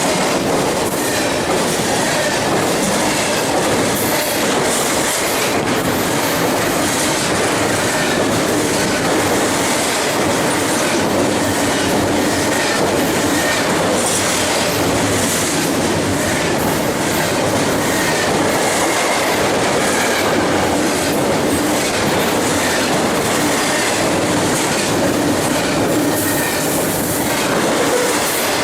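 BNSF double-stack container freight train rolling steadily past, its steel wheels rumbling and clicking over the rail joints.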